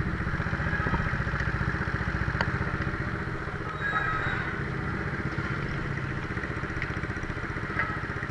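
A small motorcycle engine idling steadily with an even, fast putter, and a light click about two and a half seconds in.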